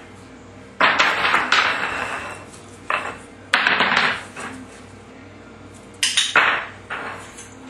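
A small hard object clattering and scraping on a tile floor as a puppy mouths, drops and pushes it, in three bursts: about a second in, around four seconds in, and about six seconds in.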